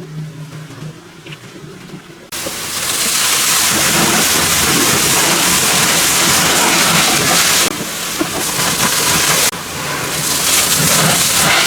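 A high-pressure jet hissing loudly against a car, starting suddenly about two seconds in, cutting out briefly near the middle and starting again.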